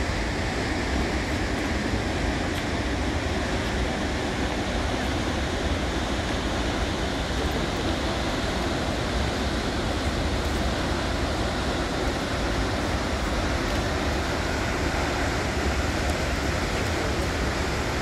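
Steady, even rush of the Krimml Waterfalls, the noise of a large mass of falling water and spray.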